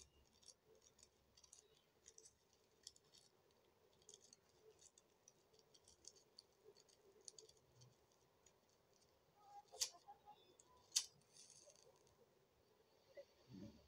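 Quiet handling sounds: faint ticks and rustles from hands working at small objects, then two sharp clicks about ten and eleven seconds in.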